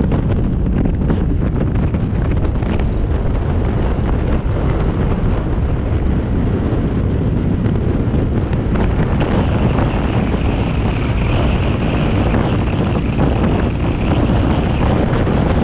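Wind buffeting a moving camera's microphone during a ride, over steady road and vehicle noise. A higher hiss joins about halfway through.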